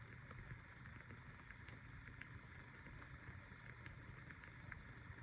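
Near silence: room tone with a low steady hum and a few faint ticks.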